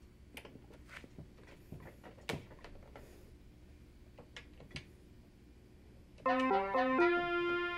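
Faint scattered clicks over a low hum, then about six seconds in a keyboard melody of held notes starts.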